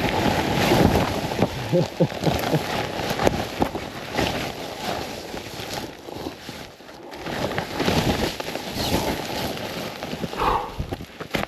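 A person trudging on snowshoes through deep snow, breathing hard, with wind on the microphone; the sound swells and fades every few seconds.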